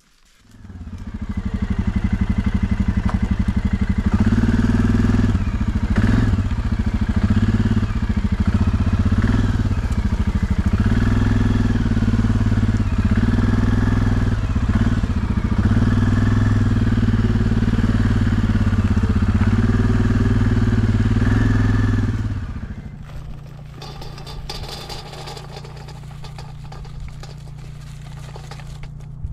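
A small engine comes in about half a second in and runs loudly, its pitch rising and falling with the throttle. About 22 seconds in it drops to a quieter, steady low hum.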